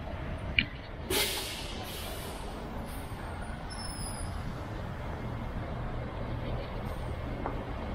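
Steady rumble of passing buses and cars at an airport pickup curb, with a sharp click about half a second in and then a short loud hiss of a bus's air brakes releasing about a second in, fading out over a second or so.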